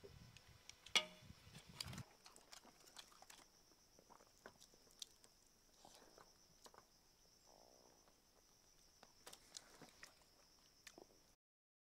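Near silence: faint scattered clicks and taps of someone eating, with one sharper ringing clink about a second in, over a steady high-pitched hum.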